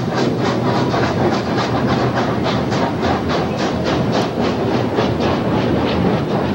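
Narrow-gauge steam locomotive chuffing in an even rhythm of about four to five exhaust beats a second, over the steady rumble of the train cars on the rails, heard from a car close behind the engine. The chuffs grow somewhat fainter near the end.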